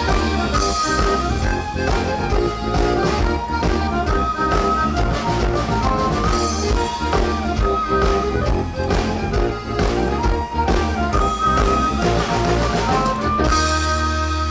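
Irish folk-rock band playing live: a fiddle melody over a drum kit and bass with a fast, steady beat. About a second before the end the drumming stops and the band holds a long final chord.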